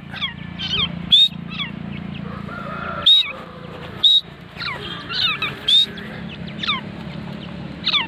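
Grey francolins calling: loud, shrill, sharp notes repeated about once a second, mixed with whistled notes that fall in pitch, over a steady low hum.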